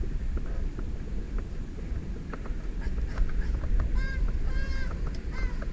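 Footsteps and scuffs on a dirt cave floor over a steady low rumble from a handheld camera being carried along. About four seconds in, and again near the end, come three short, high-pitched nasal sounds.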